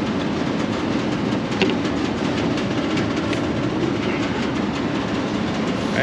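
Steady rumbling drone of rooftop HVAC equipment running, with a couple of faint clicks from gauge-manifold hoses and fittings being handled.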